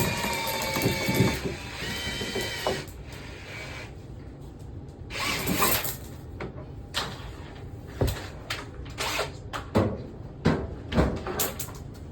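A small motor whining steadily and stopping about three seconds in, followed by scattered knocks, clicks and clatter of tools and equipment being handled.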